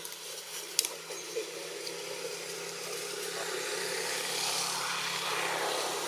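Vehicle engine running: a steady low hum under a rush of noise that swells about halfway through and eases off near the end, with a single click about a second in.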